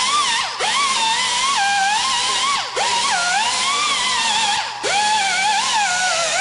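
Pneumatic die grinder with a red abrasive buffer pad working the port area of a Detroit Diesel 60 Series cylinder head. It gives a high whine whose pitch sags and wavers as the pad bears on the metal. It drops out briefly three times and spins straight back up each time.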